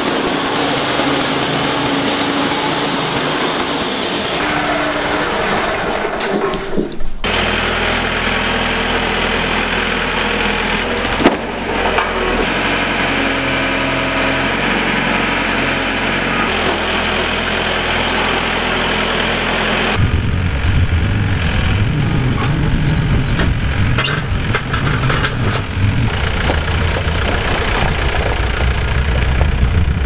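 Wood-Mizer LT35 portable sawmill running, its band blade sawing through a log, in several edited stretches. About twenty seconds in, the sound changes to a rougher, lower rumble.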